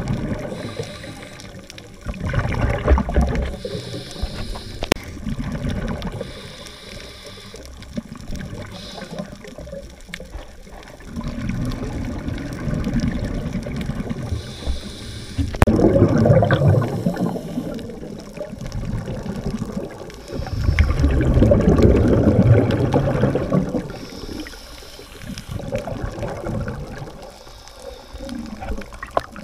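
Scuba diver breathing through a regulator, heard underwater: bursts of exhaled bubbles rushing past, each lasting a few seconds and coming every several seconds, with quieter stretches between.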